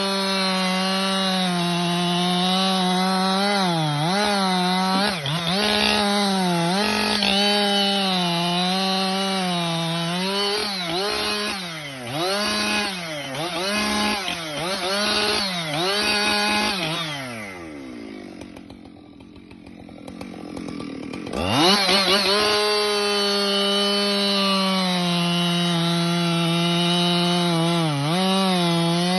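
Two-stroke chainsaw cutting wood at full throttle, its engine speed dipping again and again as the chain bites under load. About seventeen seconds in it drops back to idle, then revs up sharply about four seconds later and runs at full speed again.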